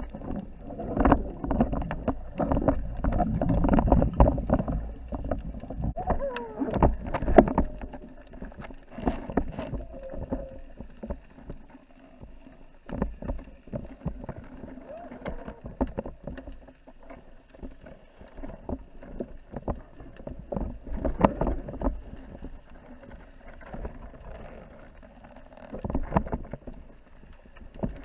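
Muffled underwater handling noise: water rushing with irregular knocks and clicks as a speared bluefish is gripped and wrestled on the line. It is busiest in the first several seconds, with further bursts of knocks later.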